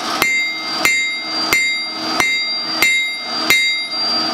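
Blacksmith's hand hammer striking a steel leaf blank on an anvil, flattening the tapered triangle into a leaf shape. The blows fall evenly, about one and a half a second, and each leaves the anvil ringing briefly.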